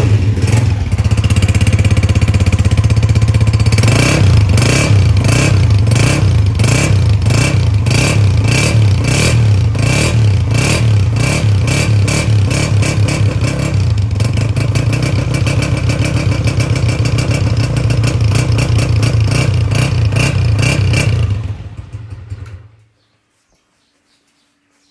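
Honda CG 125 single-cylinder four-stroke engine running through an AHL-3 aftermarket silencer, its exhaust pulsing evenly and fuller under throttle from about four seconds in. The engine is switched off about 22 seconds in.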